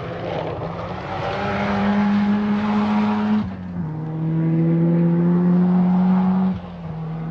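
Mazda Familia 4WD rally car's engine under full throttle, its pitch climbing steadily. It upshifts about three and a half seconds in and again near the end, as the car passes and pulls away.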